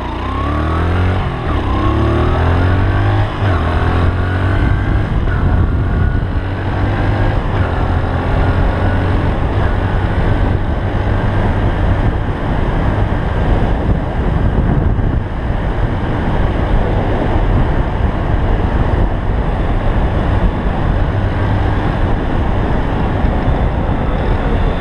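Honda TL125S's single-cylinder four-stroke engine pulling away and revving up through the gears, the pitch rising and dropping back with each shift over the first few seconds, then running at a steady cruise with wind rumbling on the microphone.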